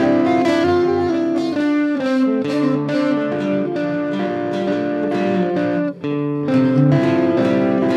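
Instrumental background music led by plucked guitar, with picked notes over sustained chords. It briefly drops out about six seconds in, then carries on.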